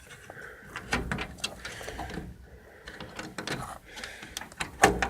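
Clicks, taps and knocks of computer parts being handled inside an old desktop PC case during disassembly, with one sharp knock near the end.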